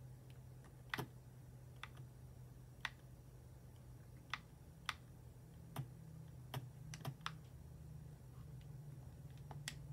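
Faint, sharp plastic clicks of a game controller's buttons being pressed, about ten at irregular intervals, over a low steady hum.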